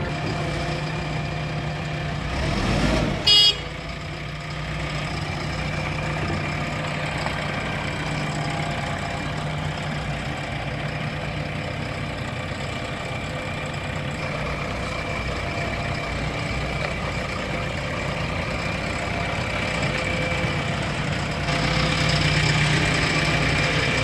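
JCB 3DX backhoe loader's diesel engine running steadily, with one short horn toot about three seconds in. The engine gets a little louder near the end.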